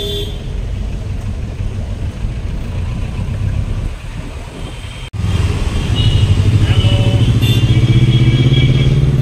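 City traffic heard from inside a moving taxi through its open window: a steady rumble of engines and tyres. About five seconds in, the sound cuts abruptly and a nearby engine comes in louder, rising steadily in pitch as it accelerates.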